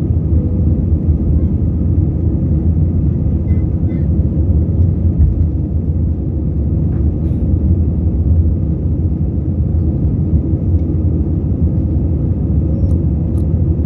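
Steady low rumble of an airliner's jet engines and rushing air, heard inside the cabin during the climb just after take-off.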